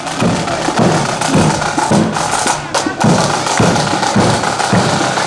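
Marching band drums playing a steady march beat: a bass drum strikes a little under twice a second under rattling snare drums.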